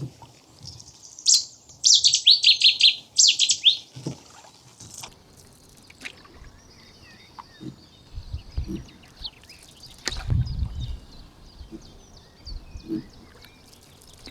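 A songbird in the reeds gives a loud burst of rapid, repeated song notes lasting about two seconds, then fainter scattered chirps carry on. A few low thuds come near the end.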